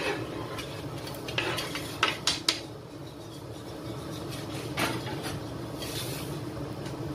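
A few sharp knocks and clinks against a stainless steel pot as tomato and leek pieces are tipped off a cutting board into boiling chicken soto broth, over the steady bubbling of the boiling broth.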